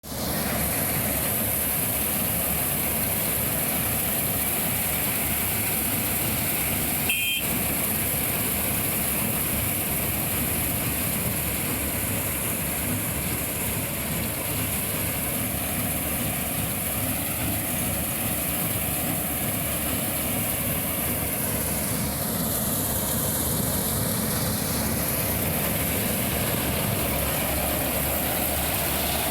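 KS 9300 combine harvester with its Ashok Leyland diesel engine running steadily, a constant engine and machinery noise with a strong high hiss. A single brief click about seven seconds in.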